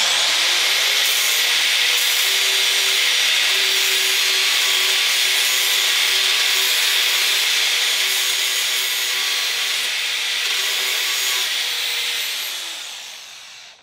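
Festool AGC 18 cordless 18-volt angle grinder spinning up and grinding the sharp cut end of a steel threaded rod with an abrasive disc to soften the edge, a steady motor tone under the hiss of the disc on metal. The motor winds down near the end.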